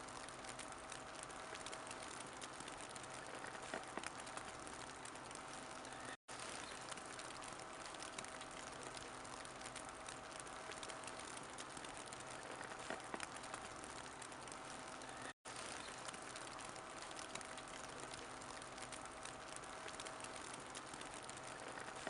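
Wood fire burning in a fireplace: a faint, steady hiss with scattered small crackles. It drops out for an instant twice.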